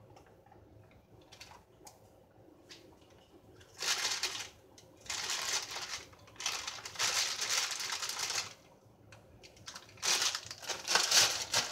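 Clear plastic bag crinkling in several bursts as raisins are shaken out of it onto brownie batter.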